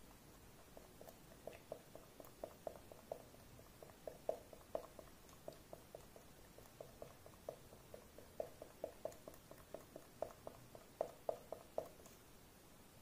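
Highlighter marker tip dabbed again and again onto clear slime: a faint, quick series of soft taps, about three a second, stopping shortly before the end.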